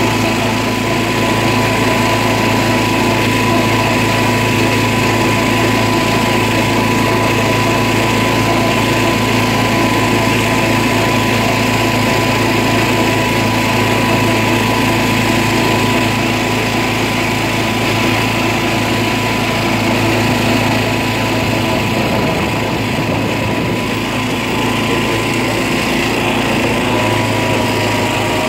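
Small engine of an old John Deere riding lawn tractor running steadily at a constant pitch while the tractor is driven.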